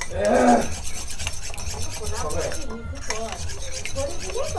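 Raw eggs being beaten with a steel spoon in a small stainless steel bowl: rapid, even strokes of the spoon scraping and clicking against the bowl.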